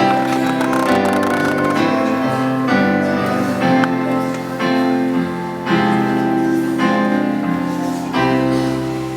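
Piano music playing slow sustained chords that change about once a second, with a longer held chord near the end.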